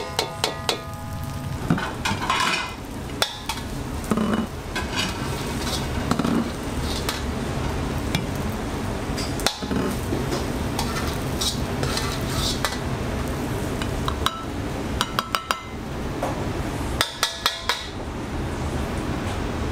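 Metal ladle scraping and clanking against a carbon-steel wok as fried rice is stirred and scooped out, with quick runs of sharp clanks near the end. Underneath is a steady low rumble.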